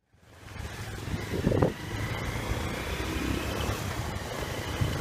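Road noise from riding a motorcycle through wet traffic: a steady low rumble of engine and tyres with a hiss over it. The sound fades in at the start and swells louder about one and a half seconds in.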